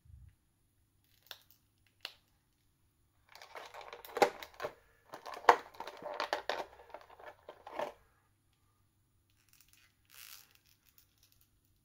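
Plastic crinkling and rustling for about four seconds, with a few sharp snaps in it, after two light clicks; the sound of a plastic action figure and its packaging being handled.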